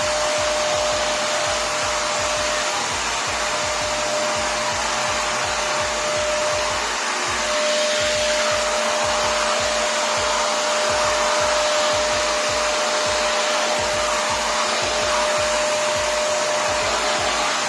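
Prestige Typhoon 06 wet-and-dry vacuum cleaner running at full suction, a loud steady rushing whir with a constant whining tone. The whine drops out briefly about seven seconds in.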